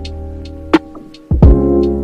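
Background music with held tones and a steady beat of light percussive strokes, with a deep bass hit about a second and a half in.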